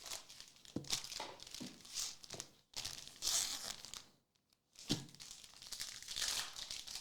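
Foil trading-card pack wrappers crinkling and being torn open, in irregular rustles with a brief pause about four seconds in.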